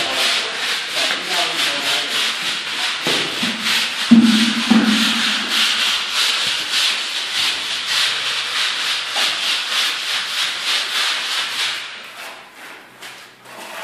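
Rapid, regular scraping strokes of a plastering tool rubbing down a plastered wall, about four strokes a second, stopping near the end. A brief, louder, lower sound breaks in about four seconds in.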